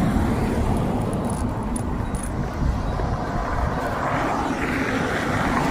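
Road traffic noise: a car passing, growing louder over the last couple of seconds, over a steady low rumble.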